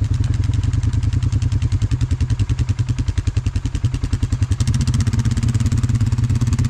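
Polaris Sportsman 570 ATV single-cylinder engine running at idle with a steady, even beat. It picks up a little, running faster and smoother, about two-thirds of the way in.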